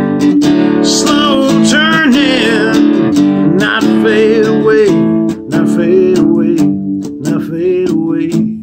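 Acoustic guitar strummed in a steady rhythm, with a man's wordless voice wavering over the chords for the first few seconds.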